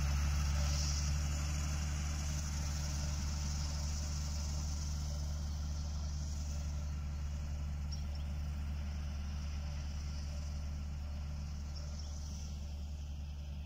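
Farm tractor's diesel engine running steadily while working a mounted fertilizer spreader, slowly fading as it moves away.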